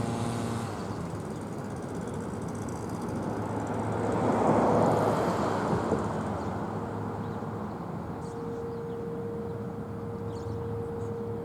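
Road traffic rumbling, with one vehicle passing and swelling louder about four to six seconds in. From about eight seconds in, a faint steady tone runs along under the traffic.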